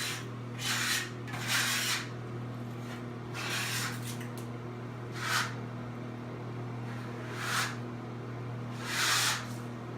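Flooring adhesive being spread across the subfloor by hand, six separate scraping strokes of the spreader, irregularly a second or two apart, over a steady low hum.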